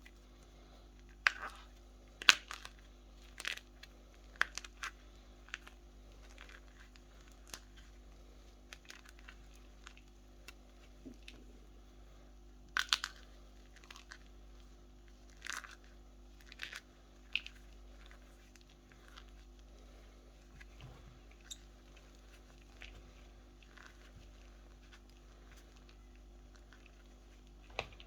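Sports chalk being crushed, crunching in irregular sharp crunches, clustered near the start and again in the middle, with fewer and fainter ones toward the end.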